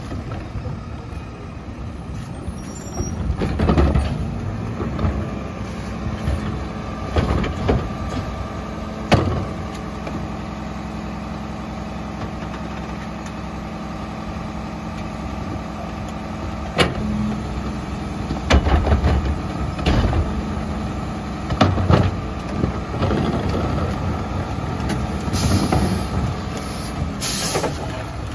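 Mack LEU garbage truck's diesel engine running steadily at the curb, with a series of sharp bangs as plastic carts are knocked against the rear-loader hopper while being emptied, several of them around the middle.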